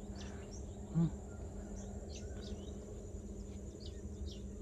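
Outdoor insects: a steady high-pitched insect drone with scattered short high chirps, over a low steady hum. A brief low voice sound comes about a second in.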